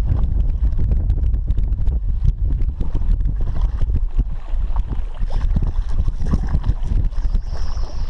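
Strong wind buffeting the camera microphone: a loud, low, fluttering rumble.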